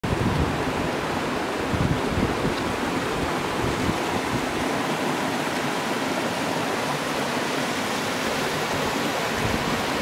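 Steady rushing of a small waterfall pouring into a rock pool and spilling down cascades. A couple of brief low buffets of wind on the microphone come near the start and about two seconds in.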